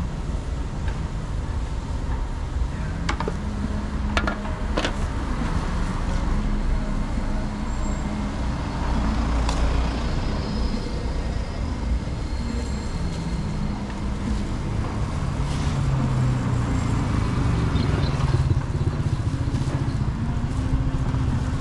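Steady low rumble of road traffic, engines passing and drifting in pitch. A few sharp clicks or knocks come about three to five seconds in.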